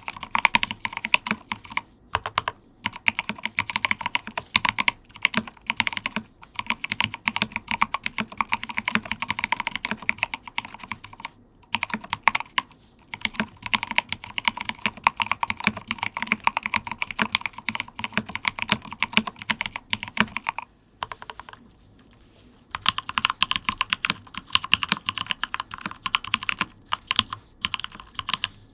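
Typing on a Rama Koyu mechanical keyboard with lubed and filmed Mauve 65g linear switches, first with SA-profile keycaps and a deeper clack. After a short break a little over two-thirds in, it continues with GMK keycaps and sounds brighter.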